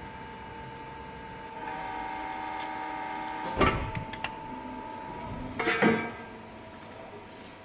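A 150-tonne Beyeler CNC hydraulic press brake running with a steady hum. About a second and a half in, the hum gets louder and adds higher tones. There is a sharp knock near the middle and another about two seconds later, then the hum eases off.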